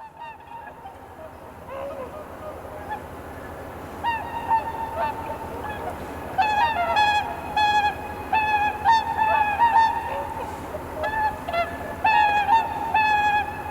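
A flock of swans calling: short nasal honks that are scattered at first, then come in quick, overlapping runs from about halfway through. The calls echo across the marsh over a steady low rumble.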